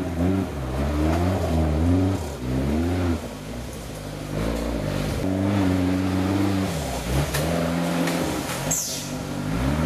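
Engine of a modified short-wheelbase off-road 4x4 revving in repeated surges under load as it climbs out of a rocky creek, then pulling at steadier high revs through the jungle trail.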